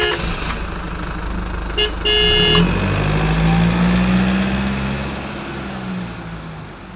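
Truck horn honking: a honk that ends just after the start, a short toot just under two seconds in, and a longer honk right after it. Under it a truck engine runs with a low drone that slowly fades away over the last few seconds.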